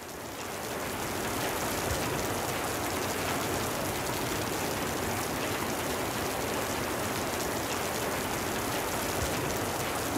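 A steady rushing noise like rain or running water, fading in over the first second.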